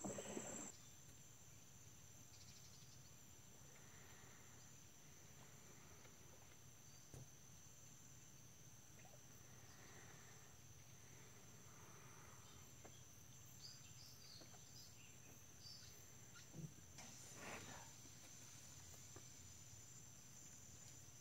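Near silence with a faint, steady high-pitched insect drone, and a few soft, brief sounds, the clearest about three-quarters of the way through.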